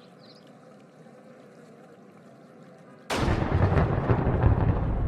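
A faint steady background with a few small chirps, then about three seconds in a sudden loud explosion sound effect that rumbles on heavily in the low end.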